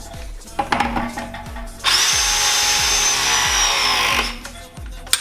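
Background music with a steady thumping beat; in the middle a power tool runs for about two seconds, its whine falling as it winds down.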